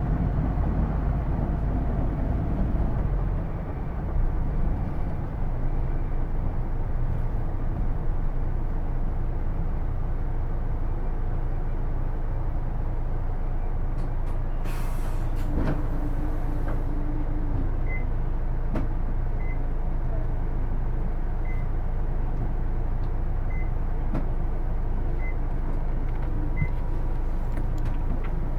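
Hino Blue Ribbon II city bus idling steadily while standing at a stop, heard from inside the cabin. Its engine hum is a little louder for the first few seconds and then settles. About halfway through comes a short hiss of compressed air.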